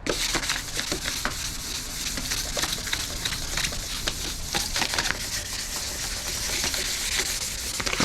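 Sandpaper rubbed by hand back and forth over the painted metal of a car's engine bay: a steady scratchy scrubbing, scuffing the old paint so new paint will stick.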